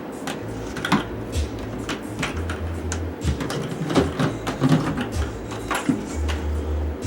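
Irregular light clicks and knocks, typical of plastic buckets being handled, over a low bass note from background music that repeats about every four seconds.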